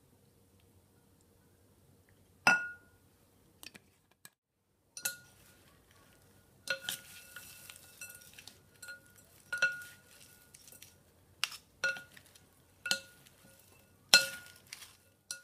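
Two wooden spoons tossing salad in a large glass bowl: repeated knocks against the glass, each ringing briefly with the same tone, over a light rustle of the salad. A single sharp clink against glass comes about two and a half seconds in, before the tossing starts.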